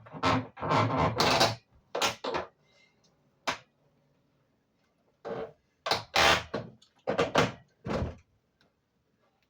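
Irregular clunks, knocks and scraping of a window air conditioner and its fittings being handled and fitted into the window frame, in several bursts with short pauses between.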